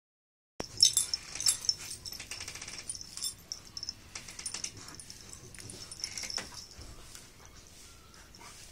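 Two dogs play-fighting, biting and mouthing at each other: scuffling, mouth noises and quick clicks, loudest in the first couple of seconds and easing off later.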